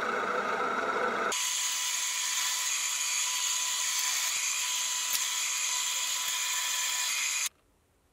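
Electric drill running as its twist bit bores through a thin metal disc clamped in a machine vise: a steady motor whine with the bit cutting. The sound changes abruptly about a second in and cuts off suddenly near the end.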